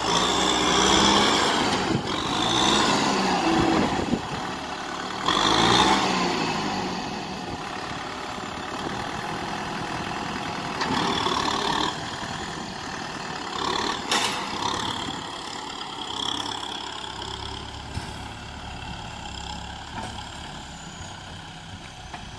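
Kubota M6040SU tractor's diesel engine working as its front blade pushes dirt. The engine speed rises and falls in the first few seconds, then runs more steadily and grows fainter as the tractor moves away.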